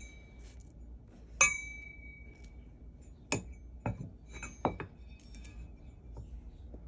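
Ornate metal candle holder clinking as it is handled and laid on the table. One sharp metallic clink about a second and a half in rings on briefly, followed by a few shorter knocks.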